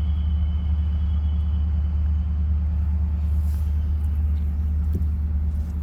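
Steady low droning rumble with a few constant pitched lines above it, mechanical in character, holding level throughout. A faint high tone fades out within the first two seconds.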